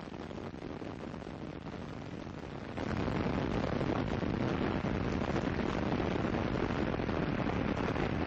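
Space Shuttle Columbia's rocket engines during ascent: a steady, noisy roar from the solid rocket boosters and main engines. It steps up and gets louder about three seconds in.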